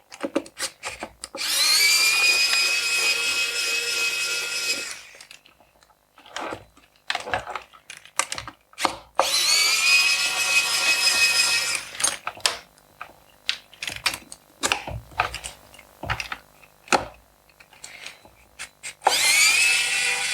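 Electric screwdriver whining in three runs of a few seconds each, each rising briefly in pitch as it spins up, backing out the screws that hold a laptop keyboard. Short clicks and taps of handling fall between the runs.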